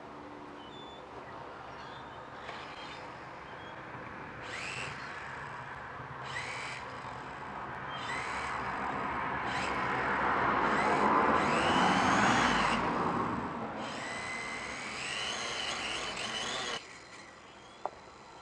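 Small quadcopter's electric motors and propellers spinning up in short throttle bursts while it sits on the ground, each burst a whine that rises and falls in pitch, loudest about ten to thirteen seconds in. The motors cut off suddenly near the end. The propellers have just been replaced and the motors oiled.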